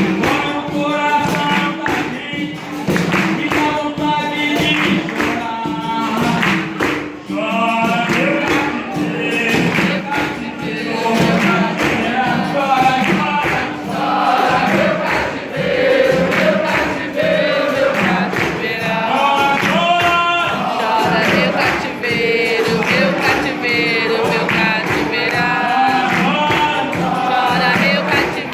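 Capoeira roda music: male voices singing, with a group chorus answering, over steady percussion and hand clapping.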